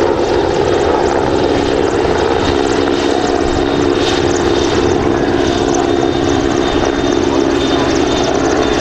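Italian Navy SH-101A (AgustaWestland AW101) three-engined helicopter flying close by: a steady, loud rotor and turbine noise with a faint high whine over it.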